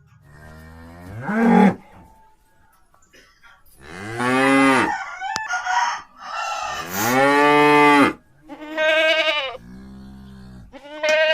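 A calf making a run of drawn-out, pitched moaning calls, which the uploader calls snoring in its sleep. One call rises near the start, two long loud ones come in the middle, and toward the end a low quiet moan alternates with a higher, louder one.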